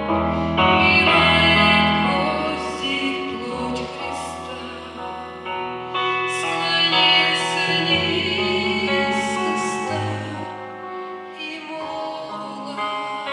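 A woman singing a church worship song over instrumental accompaniment with held chords and bass notes.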